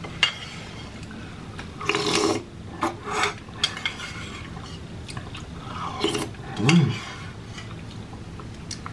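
A metal spoon clinking and scraping against a small bowl while soup is spooned up and slurped from the spoon, with a short hum about two-thirds of the way through.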